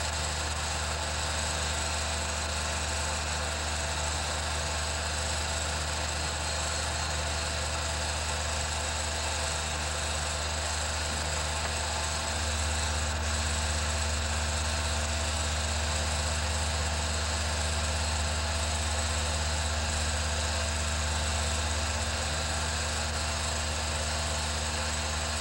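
Steady running hum of an 8mm film projector, a low drone with a constant whine and hiss above it; the drone grows a little louder about halfway through.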